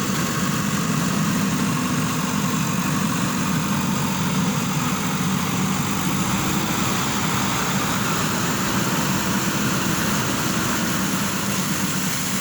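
JCB backhoe loader's diesel engine running steadily at a constant idle.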